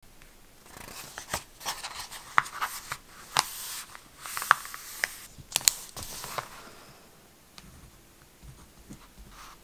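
Paper notebook pages handled: crisp rustling and sharp paper snaps as the pages are opened and pressed flat. Near the end come faint scratches of a pen writing.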